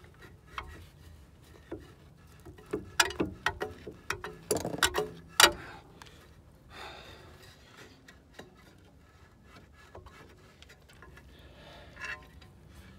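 Rusty front brake caliper and suspension parts being handled by hand: scattered clicks and knocks of metal parts, with a quick run of sharp knocks in the middle, the loudest about five and a half seconds in, and one more click near the end.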